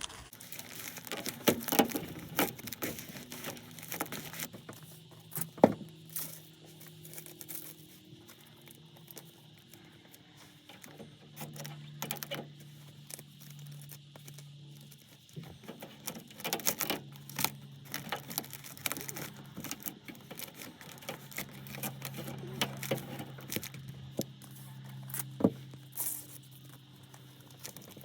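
Crinkling and rustling of flexible HVAC duct being handled and fitted onto a collar, with scattered sharp clicks and knocks.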